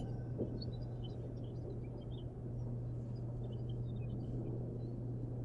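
Outdoor ambience: a steady low hum over a low rumble, with faint, scattered bird chirps.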